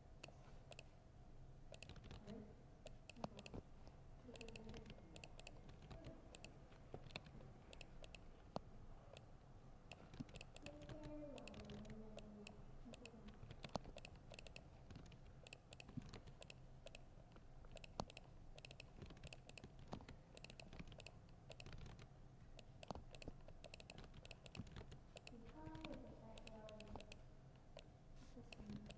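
Faint typing on a laptop keyboard: a quick, irregular run of soft key clicks that goes on throughout, over a low steady hum.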